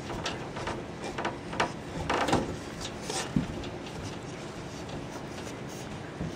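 Light knocks, rubbing and rustling as a cat bats and grabs at a hand through a wire cage panel, the mesh and the wooden shelf rattling; the loudest clatter comes about two seconds in.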